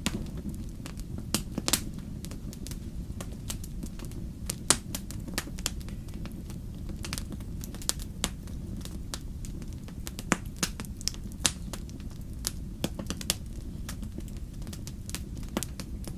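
Wood campfire burning: irregular sharp crackles and pops over a steady low rumble, with a few louder pops scattered through.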